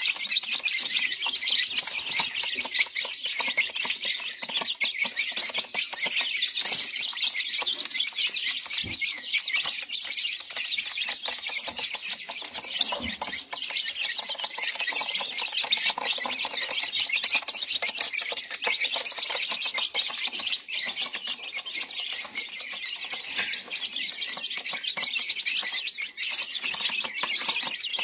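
A brood of silkie chicks peeping all at once: a continuous chorus of many overlapping short, high-pitched cheeps.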